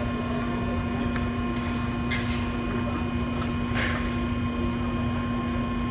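Hydraulic trainer's power unit running with a steady hum and a fixed tone while the system pressure is being set to 200 PSI, with two brief faint hisses about two and four seconds in.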